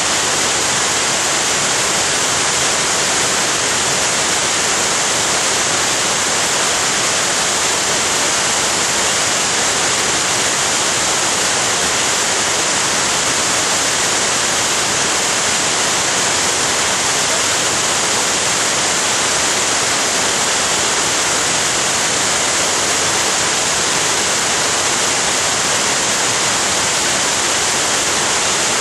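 Florence Falls, a mountain waterfall, pouring steadily: an even, unbroken rush of falling water with a bright hiss.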